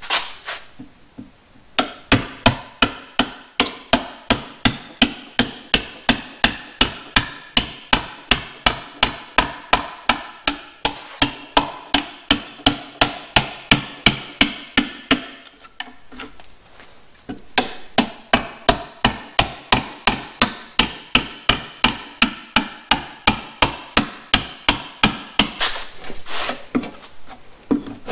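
A hammer striking wood in a steady run of blows, about three a second, with a short pause about halfway through.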